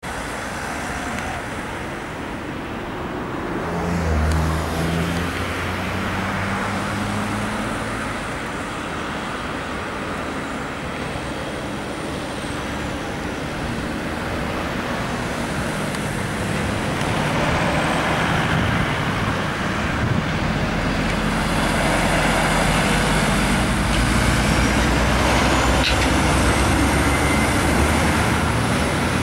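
Road traffic: cars and heavy fire-brigade trucks driving past with their diesel engines running, growing louder in the second half as the trucks come through.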